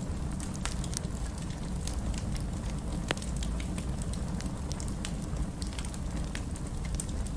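Wood fire burning in a fireplace: a steady low rumble of flames with irregular crackles and pops, one sharper snap about three seconds in.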